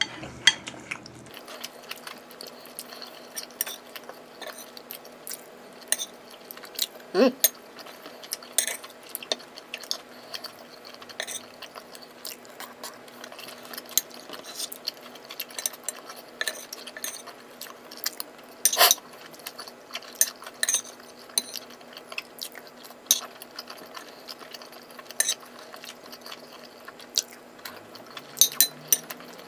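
Metal spoon clinking and scraping against a ceramic plate during eating, with irregular sharp clicks every second or so and chewing between them, the loudest clink about two-thirds of the way through. A steady low hum runs underneath.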